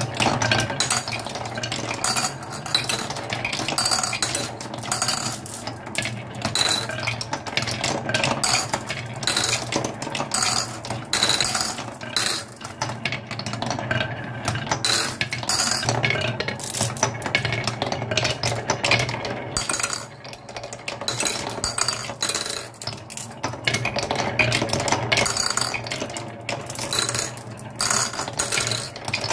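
Marbles rolling and clattering down a wooden marble run, mostly around its plywood spiral track: a continuous rattle of rolling with many quick clicks and clinks. Near the end they run along wavy grooves carved in a wooden board.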